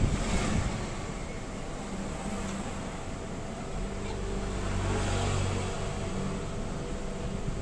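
A vehicle engine running in the background, its low hum swelling about halfway through and then fading, over steady background noise.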